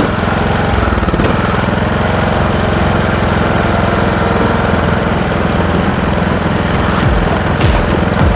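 Small petrol engine running steadily just after being started, with a few low thumps near the end.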